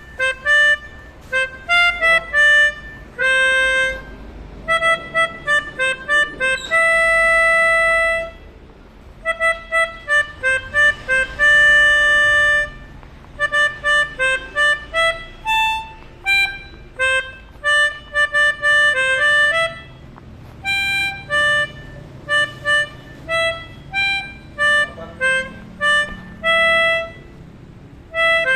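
Multi-tone telolet bus horn of the basuri type playing a tune in quick, short notes, with a few longer held notes and short pauses between phrases.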